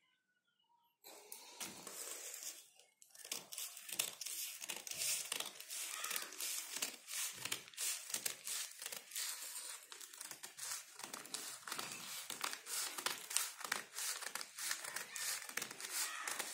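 Scissors snipping through a folded stack of newspaper, the paper rustling and crinkling with each cut. The cuts start about a second in and run on as a steady, irregular series of short snips.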